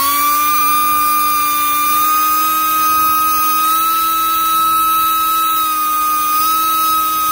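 Central Pneumatic composite air die grinder (Harbor Freight item 68831) running free with a steady high whine. Its pitch steps slightly up and down as the speed-control dial is clicked through its detents.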